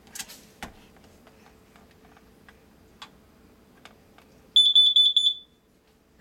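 Carbon monoxide detector sounding its test alarm when its button is pressed: a short, loud burst of rapid high-pitched beeps lasting under a second, starting about four and a half seconds in. A few faint clicks come before it.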